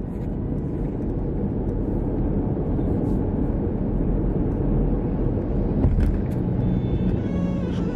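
Steady low road rumble of a car driving at highway speed, tyre and engine noise, with faint music starting to come back in near the end.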